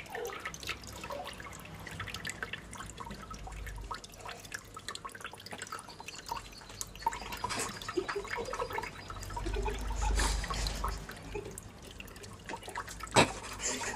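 A kitten's paws and claws tapping and scraping against a papered wall as it jumps at it, in irregular light clicks, with a sharp knock about a second before the end.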